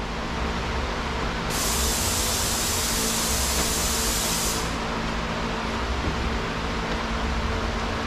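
A hiss starts about a second and a half in and cuts off about three seconds later, over a steady background hum.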